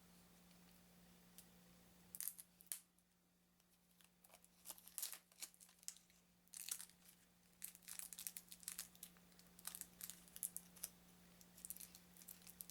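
Cellophane wrap on a deck of cards being torn and peeled off by hand, crinkling in short, irregular bursts from about two seconds in, under a faint steady electrical hum.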